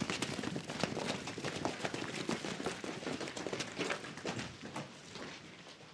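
Footsteps of a squad of soldiers running on hard ground, a fast, uneven patter of many feet that thins out and gets quieter near the end.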